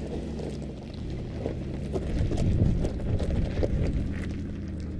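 Mercedes-Benz G 500's twin-turbo V8 running at low revs under load as it crawls up a loose rocky slope, with its tyres crunching and crackling over gravel and stones. The engine and crunching grow louder about two to three seconds in.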